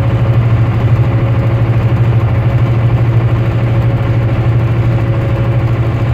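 Semi-truck diesel engine running steadily at highway cruising speed, heard from inside the cab as a strong, even low drone.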